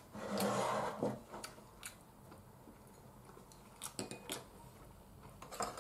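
Tableware being handled at a meal: a scatter of light clinks and taps of bowls and utensils, after a brief louder rustling noise just after the start.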